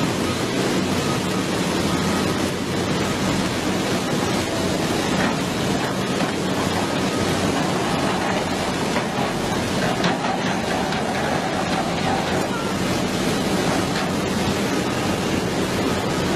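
Fast, shallow mountain river rushing steadily over rocks, a constant hiss of white water.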